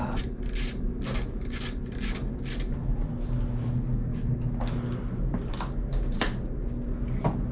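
Rubbing strokes and clicks of a RockShox Zeb suspension fork and its cables being handled as the fork is pulled off a mountain bike, about two strokes a second at first, then a few scattered clicks, over a steady low hum.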